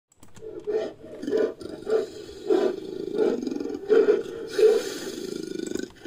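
Bear-like creature sound effect mixed from grizzly, black bear and other bear recordings: a continuous deep growl, swelling into about seven louder pulses a little over half a second apart.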